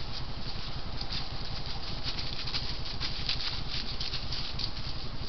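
White-tailed deer walking through dry fallen leaves: a run of light crackling, rustling steps, thickest in the middle, over a steady low hum.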